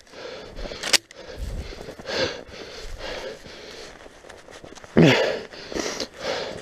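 Heavy breathing of a person out of breath, with footsteps crunching in snow. There is a sharp click about a second in, and a louder, lower breath or grunt about five seconds in.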